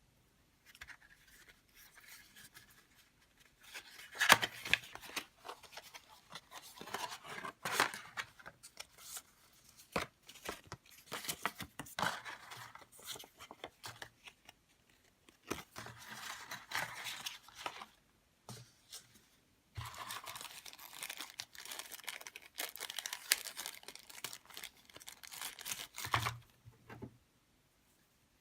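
Packaging being handled and torn open by hand: irregular rustling, crinkling and tearing of wrapping with occasional sharp clicks and taps, in several bursts separated by short pauses.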